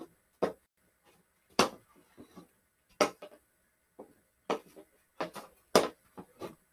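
Hockey stick blade tapping a ball back and forth while stickhandling across carpet: a string of sharp, irregular clacks, a few tenths of a second to about a second apart.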